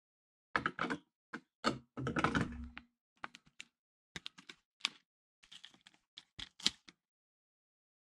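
Clear plastic stencil and blue masking tape being handled and lifted: an irregular run of plastic clicks, taps and short crackles.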